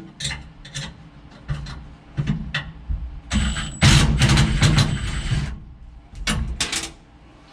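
Hand wrench turning a nut on a bolt: sharp metal clicks and clatter, with a dense run of rapid clicking in the middle.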